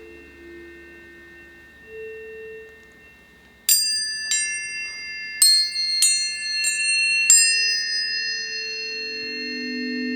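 Planetary tuning forks struck one after another: six sharp metallic strikes in the second half, each leaving pure ringing tones that overlap and sustain. Softer low tones fade in and out before the strikes, and a lower tone swells up near the end.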